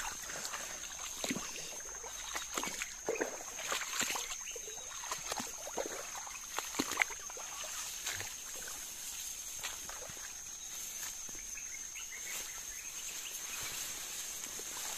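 Footsteps and tall grass rustling and brushing as a person pushes through dense vegetation, busiest over the first several seconds with a sharper snap near the middle, then softer. Behind it, a steady high-pitched insect drone.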